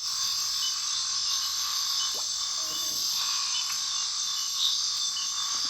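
Steady night chorus of frogs and insects, an even trilling hiss that never lets up, with a few faint short calls about two to three seconds in.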